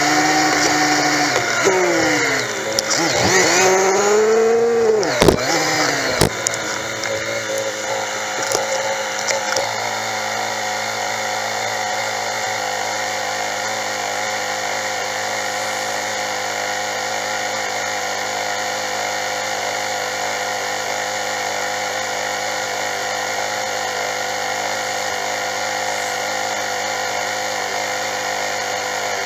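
Honda Magna motorcycle engine with its revs falling and rising as the bike slows and pulls over, with two sharp knocks about five and six seconds in. It then settles into a steady idle.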